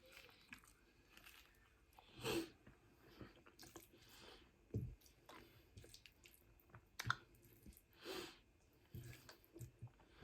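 Close-miked chewing of food: soft, irregular wet mouth sounds, with a few louder bites scattered through.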